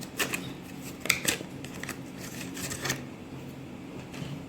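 A few short crinkles and clicks of plastic packaging being handled as a new SSD is unpacked, in three quick clusters, over a steady low hum.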